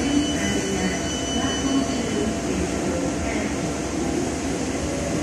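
Tyne and Wear Metro train standing at the platform close by, giving off a steady hum and hiss from its onboard equipment. A few faint steady tones die away about two seconds in.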